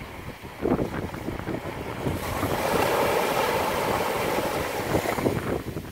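Small waves breaking and washing up the sand, with a wave's rushing hiss building about two seconds in and fading near the end. Wind buffets the microphone throughout.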